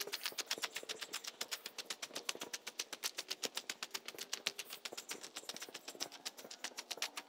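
Footsteps crunching on a gravel path in a fast, sped-up walk, coming as a quick, even run of clicks about eight a second.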